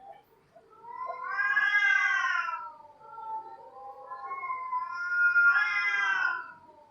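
Cats yowling: two long drawn-out caterwauls, each swelling and bending up then down in pitch, with a short break between them.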